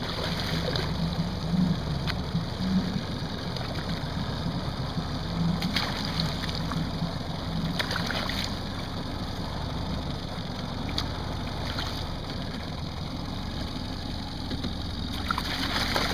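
A hooked fish thrashing and splashing at the surface beside the boat, in several separate bursts, the busiest near the end. Under it a boat motor runs with a steady low hum.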